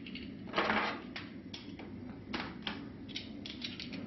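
Light clicks and knocks of a digital micrometer and its metal adapter being handled and fitted together, with the loudest cluster about half a second in and a quicker run of small clicks near the end.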